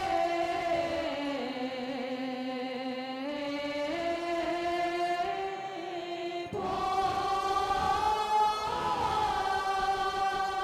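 Buddhist chanting by a choir of voices in unison, on long held notes that dip and rise slowly in pitch; a new, louder phrase begins about two-thirds of the way through.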